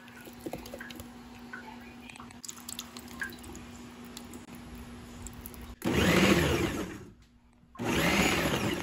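Ninja food processor pulsed twice, each pulse a loud whirring chop of about a second with a short pause between, as its blade chops olives, pickles and sun-dried tomatoes into relish. Before the pulses, a few seconds of faint clicks and knocks.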